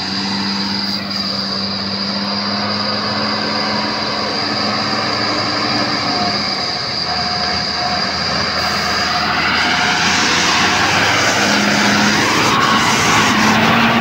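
A vehicle engine running steadily and growing louder as it draws near, with a rush of noise that swells over the last few seconds.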